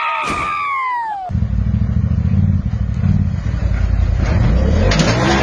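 Shouting voices with falling pitch and a single knock end abruptly about a second in. Then a side-by-side UTV's engine runs low and uneven as the machine crawls over rocks.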